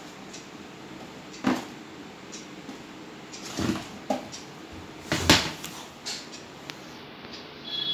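A handful of knocks and thumps from cats pouncing and bumping into cardboard boxes on a tiled floor during play. The loudest comes about five seconds in.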